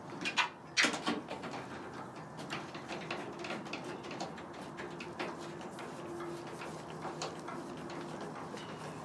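Craftsman ratcheting socket wrench clicking in short, uneven runs as bolts on a pickup tailgate are tightened by hand, with two louder clicks near the start.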